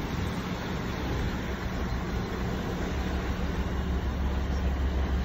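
A large work boat's engine running with a steady low hum as the vessel passes close by, over a broad rushing noise of water and wind.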